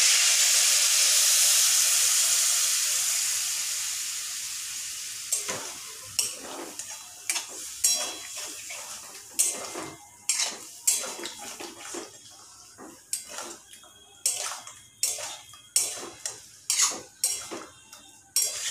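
Water poured into a hot steel kadai of spiced potatoes and peanuts sizzles loudly, the hiss dying away over the first few seconds. Then a metal spatula scrapes and clacks against the kadai as the curry is stirred, in irregular strokes about one or two a second.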